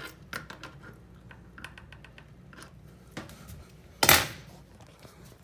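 Small metallic clicks and taps of a crescent wrench on the bidet's water-line fitting as the nut is given its last turn, then a brief loud scrape of handling about four seconds in as the wrench comes off.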